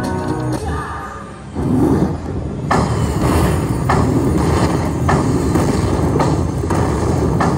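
Buffalo Link slot machine counting up its bonus win: the game music stops, then about a second and a half in a low rumble starts, with a sharp hit about every half second as each buffalo symbol's value is added to the win meter.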